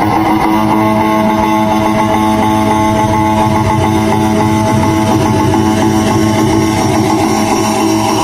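Loud music with long held notes, played through a large DJ speaker system during a sound check.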